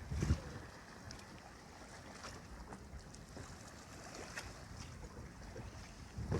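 Wind buffeting the microphone over the wash of sea water around a small boat, with a low thump about a quarter second in and a few faint clicks.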